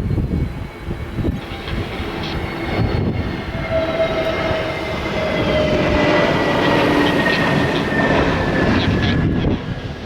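Airbus A321neo's CFM LEAP-1A turbofans on final approach, a whine whose tones fall slowly in pitch as the jet comes closer and passes, louder around the middle. Strong gusty wind buffets the microphone underneath.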